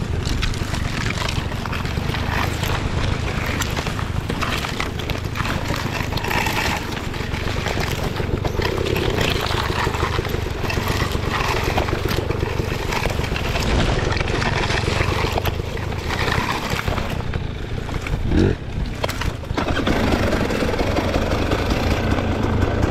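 Enduro motorcycle being ridden, its engine running under a steady rough noise, with one short rev rising in pitch late on.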